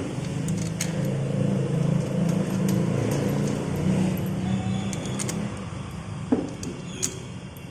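A motor vehicle's engine running, a low rumble that swells and then fades after about five seconds, with a few light metallic clinks near the end.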